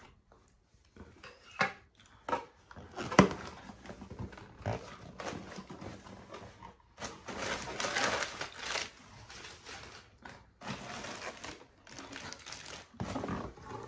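A parcel's packaging and plastic bags being handled and unpacked: irregular rustling and crinkling with scattered clicks and knocks. The sharpest knock comes about three seconds in.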